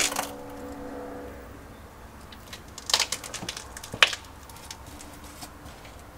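A few sharp clicks and knocks: one at the start, another about three seconds in and the loudest about a second later, over a faint steady background.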